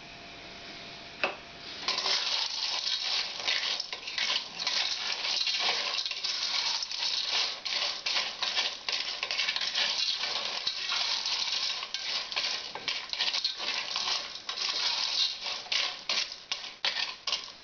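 Periwinkle shells clattering and rattling against a stainless steel pot as they are stirred with a wooden spatula while they cook dry over the heat. A dense, rapid clicking that starts about two seconds in and keeps going.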